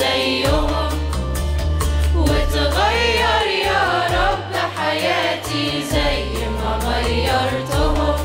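Youth choir singing together into handheld microphones over amplified backing music with a held bass line and a beat.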